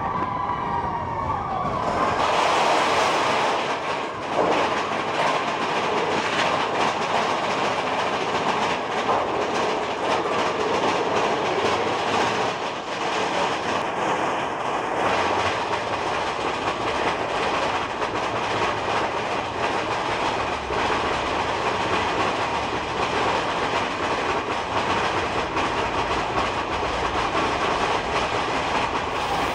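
Big Thunder Mountain Railroad mine-train roller coaster running along its track: a steady rattling clatter of the cars on the rails with rushing noise, louder from about two seconds in.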